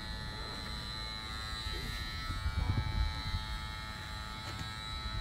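Electric hair clippers running with a steady buzz while shaving a head.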